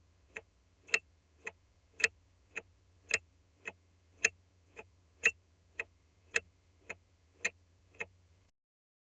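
Car turn signal clicking in a steady tick-tock, a loud click and a softer click alternating, the pair repeating about once a second, over a faint low hum. The clicking stops near the end.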